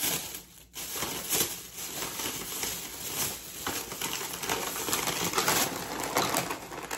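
Plastic takeout bag rustling and crinkling as it is handled, with small irregular knocks and clicks of things being moved in and out of it.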